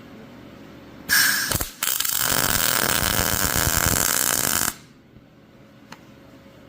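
Electric arc welding: a short burst of arc about a second in, then a steady crackling weld bead for about three seconds that cuts off abruptly, welding cut caster stem pieces onto the mill's foot studs.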